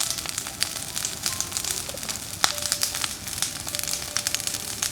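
Large bonfire burning hard, with flames several metres high: a steady hiss full of crackles and pops from the burning wood, and one sharp pop about halfway through.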